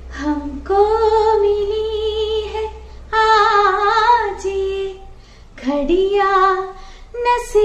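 A woman singing a slow Hindi film song unaccompanied, in long held notes with vibrato, phrase by phrase with short breaths between.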